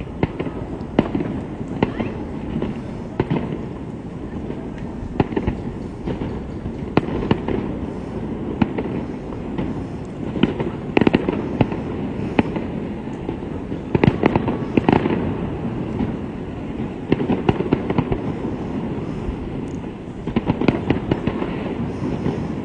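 Fireworks display going off: a run of irregular bangs and crackles, bunching into quick volleys at times, over a steady low rumble.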